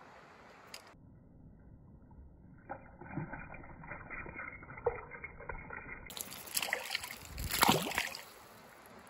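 Water splashing and sloshing close by, as something is pulled through the pond surface. An irregular run of splashes builds to the loudest about seven and a half seconds in, then stops.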